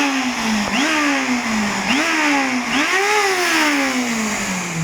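Bissell AeroSwift Compact upright vacuum's motor whining like a siren: its pitch jumps up sharply and then sags, four times, before a last long wind-down near the end, over a loud rush of air. The motor is full of dust, a bad motor that the owner means to strip down and service.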